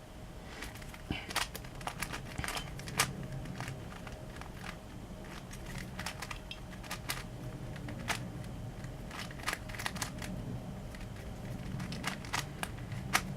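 A DaYan Megaminx being turned by hand: irregular sharp plastic clicks and clacks as the faces are twisted, over a steady low hum.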